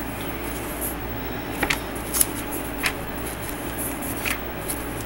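Thin Bible pages being turned by hand: a few short, crisp paper rustles at irregular intervals over a steady low hum.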